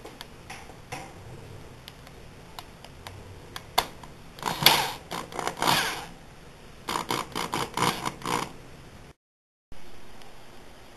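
Scattered clicks and knocks, then two stretches of clattering and scraping as wooden boards and hand tools are handled.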